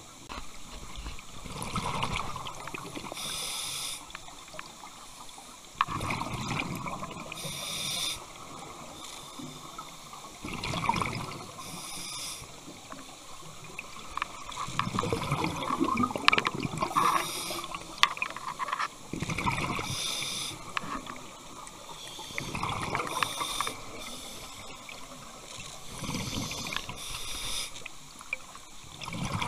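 Scuba diver breathing through a regulator: about seven breaths, one every four seconds or so, each a short hissing inhale and a low, bubbling exhale.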